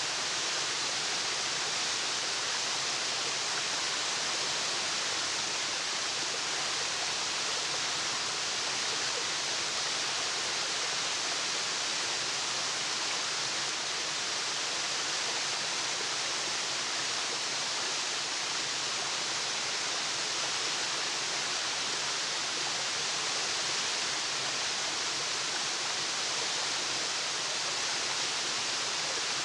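Waterfall: a steady, unbroken rush of falling water with no distinct splashes or birdsong.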